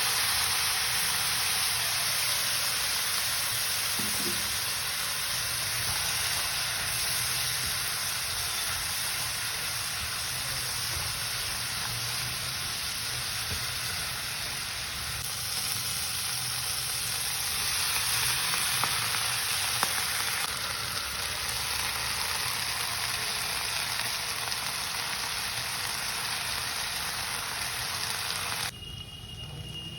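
Food frying in a hot pan: a steady, loud sizzle that cuts off suddenly near the end.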